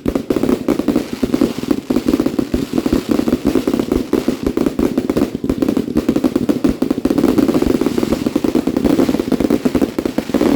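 Fireworks going off in a dense, continuous barrage: many bangs and crackles in rapid succession with no pause.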